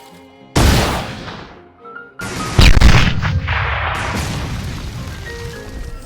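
Two loud explosive blasts over faint background music: a sharp one about half a second in that dies away within a second or so, then a bigger, longer one just after two seconds that peaks and fades slowly over several seconds.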